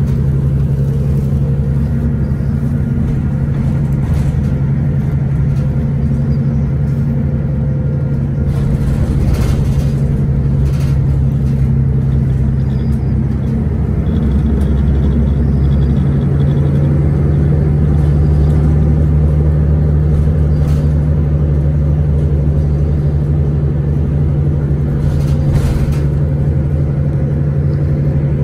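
Cummins ISL9 six-cylinder diesel of a 2011 Orion VII 3G transit bus running under way, a steady low drone whose note changes about halfway through. A few short knocks or rattles are heard over it.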